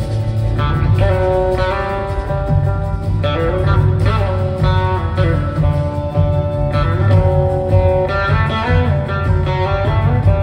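Live blues-rock band playing an instrumental passage, with a lead guitar holding long notes that slide up and down in pitch over a steady heavy bass and drums.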